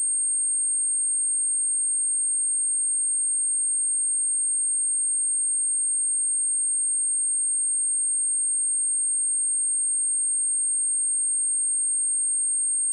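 A pure 8575 Hz sine-wave test tone: one steady, very high-pitched whistle that holds constant pitch and level.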